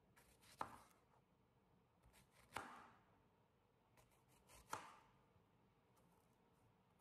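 Kitchen knife cutting through an apple onto a cutting board, three cuts about two seconds apart. Each is a brief crunch of the blade going through the fruit ending in a sharp knock on the board.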